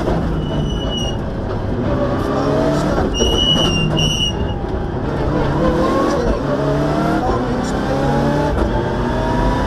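Rally car engine heard from inside the cockpit at stage pace, revving up through the gears again and again, each climb in pitch broken by a shift. Brief high-pitched squeals come about half a second in and again around three to four seconds in.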